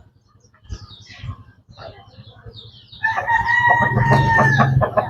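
Chickens clucking softly, then about three seconds in a rooster crows: one long held call lasting nearly two seconds.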